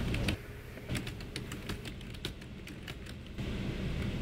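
Typing on a computer keyboard: quick, irregular key clicks over a low background hum.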